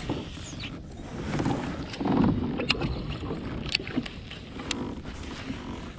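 Wind on the microphone and water noise around a kayak, with a few sharp clicks and light knocks of fishing gear being handled.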